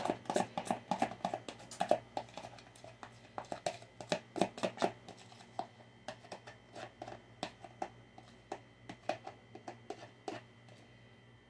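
Thick cream-cheese and fruit-filling mixture sliding and plopping out of a plastic container into a baking dish, with irregular taps and clicks as the container is shaken and handled. The tapping thins out and stops shortly before the end.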